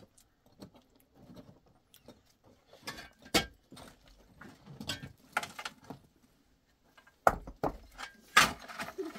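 Irregular knocks, clicks and rattles, sharpest a little over three seconds in and in a cluster of louder knocks near the end.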